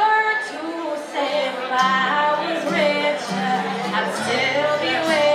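Live acoustic performance: women singing to a strummed acoustic guitar.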